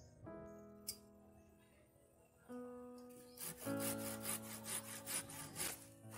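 Handsaw cutting through a thin wooden pole in quick back-and-forth strokes, about three a second, starting a little past halfway, over background music of plucked and keyboard notes.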